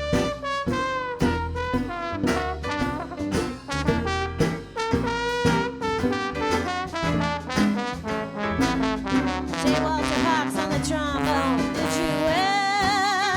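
Jazz band music, an instrumental stretch with a brass instrument playing the lead over a steady beat; the lead line bends and wavers near the end.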